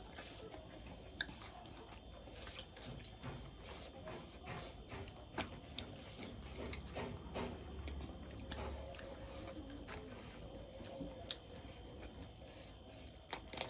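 A person chewing food with the mouth close to the microphone: irregular small clicks and smacks, on and off throughout.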